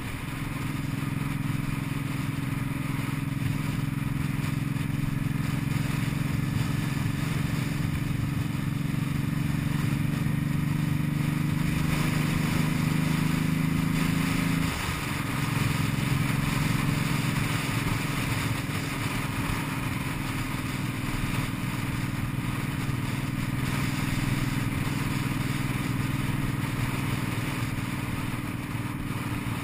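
Cruiser motorcycle engine running steadily under way, with wind noise over it. The engine note steps down in pitch about halfway through, then runs steady again.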